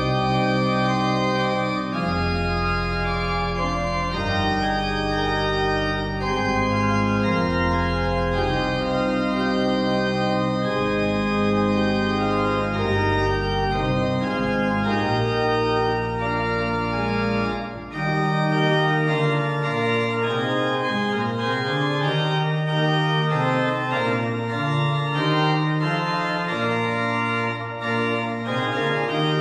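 Organ playing slow, sustained chords. Deep bass notes sound under the chords until about two-thirds of the way through, then drop out, leaving the higher voices and a moving inner line.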